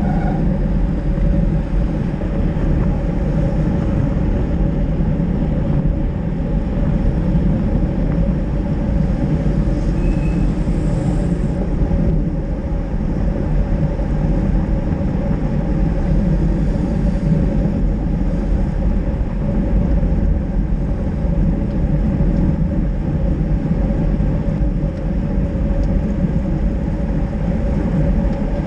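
Steady wind rush on an action camera's microphone, with road-bike tyres hissing on wet asphalt as the camera moves with a pack of cyclists.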